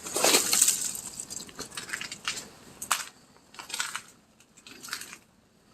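Irregular crunching and crackling, densest in the first second, then scattered single crackles with short gaps.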